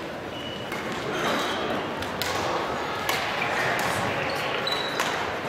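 Echoing sports-hall ambience between badminton rallies: voices, short high squeaks of shoes on the court floor and a few sharp knocks.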